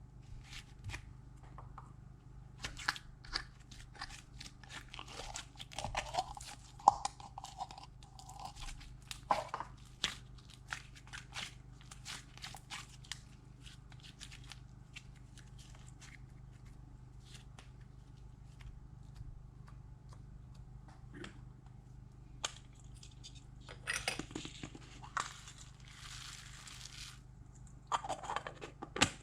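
Slime being worked by hand, giving off irregular crunchy crackles and pops, with a denser stretch of crackling near the end.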